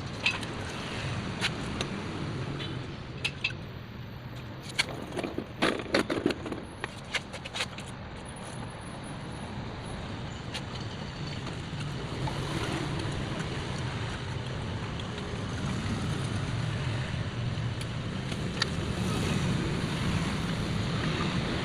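Sharp clicks and knocks of parts being handled as a water pump is fitted, over a steady low hum; the clicks cluster in the first eight seconds or so.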